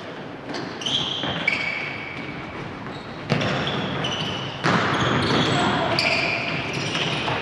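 Indoor futsal play on a wooden gym floor: sneakers squeaking in short high chirps, the ball struck hard about three seconds in and again near five seconds, and players calling out.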